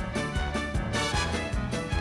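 Upbeat instrumental theme music with a steady beat.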